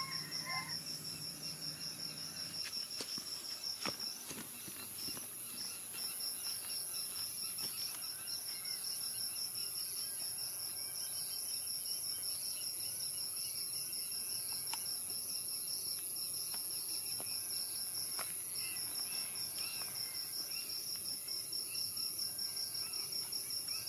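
Crickets chirping in a fast, even pulsing trill, over a steady high insect hiss, with a few faint clicks scattered through.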